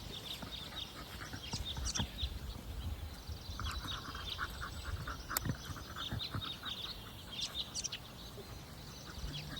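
Birds chirping and calling: many short, high chirps, with a quick stuttering run of lower calls a few seconds in. A low rumble sits underneath.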